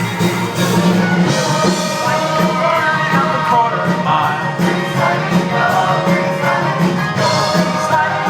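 Several voices singing together over loud accompanying music, a lively show tune performed live.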